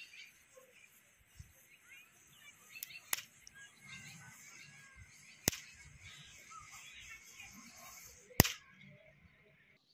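Diwali firecrackers going off: four sharp bangs spread over several seconds, two close together about three seconds in and the last and loudest about eight seconds in. Birds chirp in the background.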